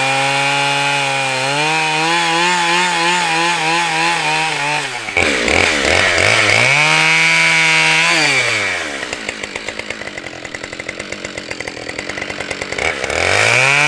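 Husqvarna 572XP two-stroke chainsaw running at full throttle, its note wavering slightly under load as it cuts through a log. About five seconds in it drops to idle, revs up again for a couple of seconds, idles with a steady putter, then revs back up near the end.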